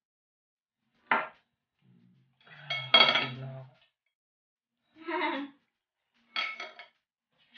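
A metal serving spoon scraping and clinking against ceramic plates as food is dished out, in four separate short bursts. The loudest comes about three seconds in.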